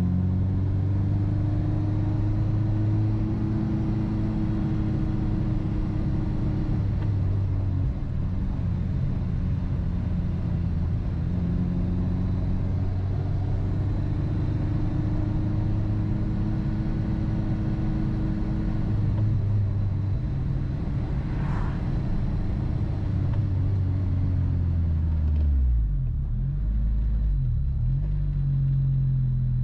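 Honda Civic Si's 2.0-litre four-cylinder engine through a Megan Racing 4-2-1 tri-Y header and a Vibrant cat-back with one resonator removed, heard while driving. The engine note rises and falls gently with throttle, drops sharply about 26 seconds in, then picks up again near the end.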